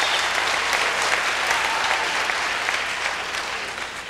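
Large audience applauding, a dense steady clapping that thins out and fades near the end.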